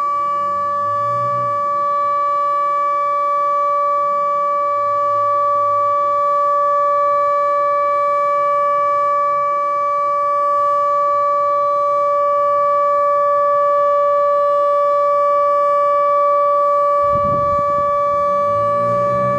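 ATI HPSS-16R electronic speaker siren sounding its steady alert tone: one unwavering pitch with overtones, held throughout. A low sound rising in pitch joins near the end.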